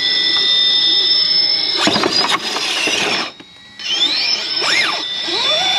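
RC rock crawler's electric motor and drivetrain whining under throttle as the truck climbs boulders. The pitch rises and falls in several swells, and a burst of scrabbling noise about two seconds in fits the tyres clawing at the rock. The sound drops out briefly around three and a half seconds in.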